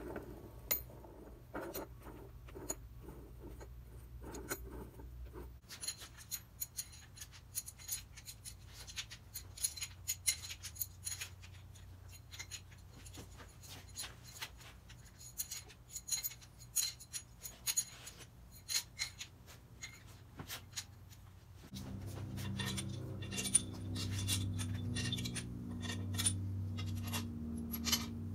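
Light metallic clinks and rattles of steel pushrods being handled one after another while they are checked for bends. A low steady hum comes in for the last six seconds or so.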